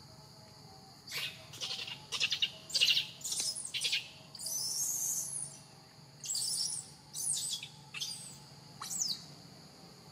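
A series of about ten short, high-pitched animal calls, the loudest around two to three seconds in, with one longer call about four seconds in. Insects buzz steadily underneath.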